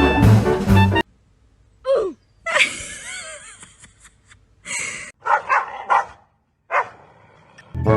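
Brass-led music stops about a second in, followed by a string of separate short animal vocal sounds, one gliding down in pitch, with a longer noisy one and several brief huffs after.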